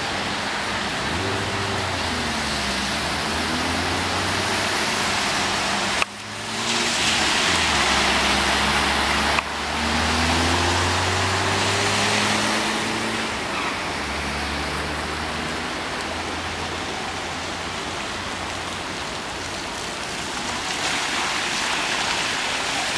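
Cars moving slowly along a flooded road, their engines humming and swelling as they pass over a steady rush of water. The sound cuts off abruptly twice.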